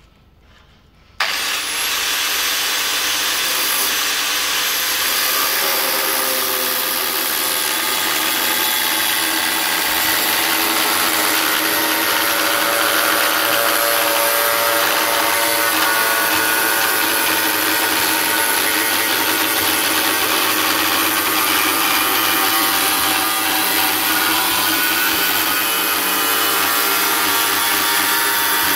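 A handheld angle grinder with a thin cutting disc starts suddenly about a second in and then runs steadily, a high whine over grinding noise, as the disc cuts through a painted sheet-metal panel.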